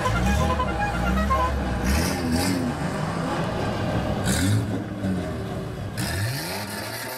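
Straight-piped exhausts of lowered old Japanese cars revving as they drive past one after another. The engine pitch rises and falls several times.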